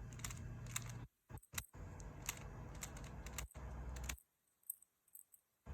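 Rubik's cube being turned by hand: a scattered run of faint plastic clicks as its layers snap round. The sound drops out to silence twice.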